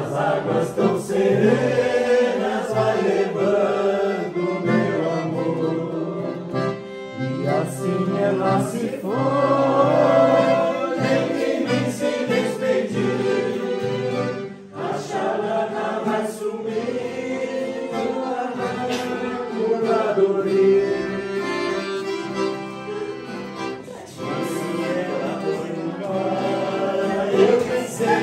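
A group of singers singing together in chorus, accompanied by an accordion.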